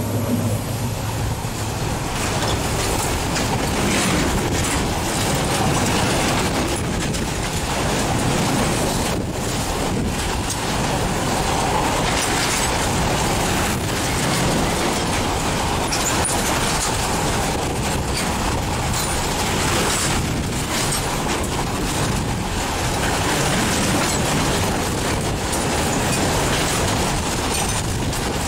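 Freight train of covered BCNHL wagons passing close at speed: a steady rumble of steel wheels on the rails, broken by continual clacks over the rail joints.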